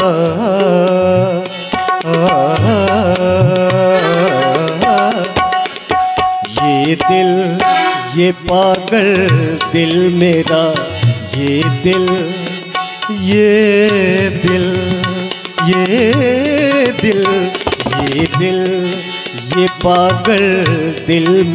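Tabla drumming a quick accompaniment under a harmonium, with a melody that slides and wavers, in an instrumental passage of a ghazal.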